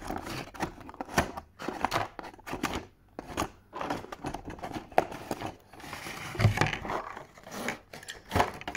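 Clear plastic twist fasteners being unscrewed and pulled out of a cardboard toy-box insert, with cardboard and paper rustling: irregular clicks and scrapes, and a dull bump about two-thirds of the way through.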